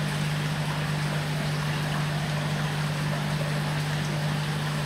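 Steady low hum of the koi tank's pump and filtration, with water splashing in from the inlet.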